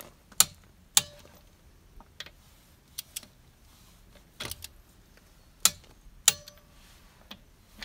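A click-type torque wrench clicks sharply as the wheel bolts reach the set torque of about 125 Nm. There are about eight clicks at uneven intervals, some with a brief metallic ring.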